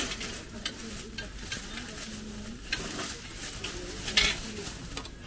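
Bags crinkling and rustling as they are handled: a run of short crackles with a louder crinkle about four seconds in.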